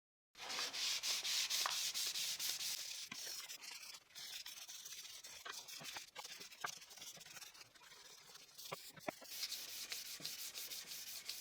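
Fine 360-grit sandpaper rubbed by hand over wood in repeated strokes, a faint scratchy hiss that is stronger in the first few seconds and again near the end, with a few light ticks in between.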